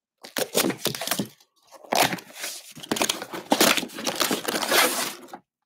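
Packing tape on a cardboard shipping box slit with a box cutter and the flaps torn open, with crinkling and tearing of the packaging. A short spell of it comes first, then a longer, louder one from about two seconds in.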